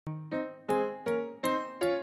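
Background music: the opening of a children's song, a piano-like keyboard playing single notes, about three a second, each struck and fading.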